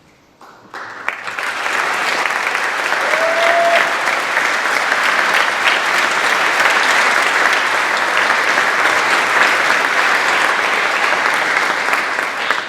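Large audience applauding. The clapping starts about a second in, builds quickly, then holds steady, with a short rising tone about three seconds in.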